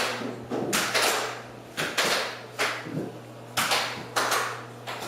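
A series of sharp knocks, about one to two a second at irregular spacing, each dying away quickly, over a steady low hum.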